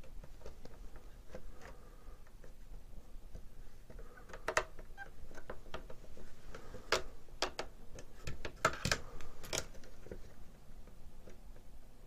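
Scattered light clicks and taps of an LCD controller panel on its plexiglass plate being handled and fitted against 3D-printed plastic brackets, sparse at first, then sharper and more frequent from about four seconds in.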